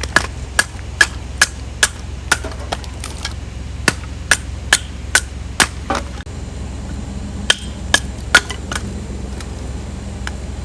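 Batoning kindling: a wooden baton striking the back of a knife blade set into a stick of firewood, splitting it. It gives a run of sharp knocks about two a second, then after a pause a second quick group of knocks.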